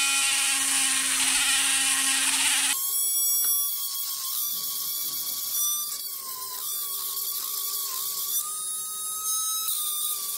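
Dremel rotary tool spinning a small steel wire brush, cleaning the decompression-valve seat of an aluminium Polini cylinder head, with a steady high whine. About three seconds in the tone changes and drops a little in level as the brush works against the metal.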